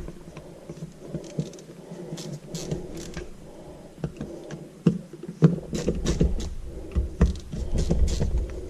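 Scattered clicks, taps and scrapes of a plastic cordless drill and battery pack being handled and worked open by hand, with heavier knocks and rumbling handling noise from about halfway through.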